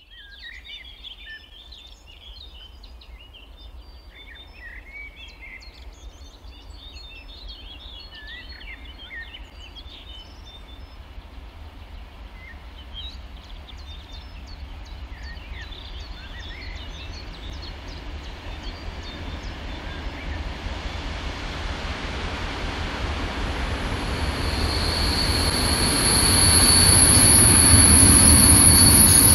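NOHAB-built DSB class MY 1135 diesel-electric locomotive hauling vintage coaches as it approaches, its rumble growing steadily louder and rising sharply over the last few seconds as it nears. From about 24 seconds in, a steady high-pitched whine of wheels on the rails rides over the engine.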